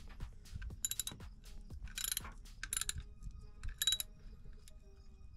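Hand socket ratchet clicking in several short bursts, with scattered single clicks between them, as a bolt is turned down to mount a new transmission kickdown switch.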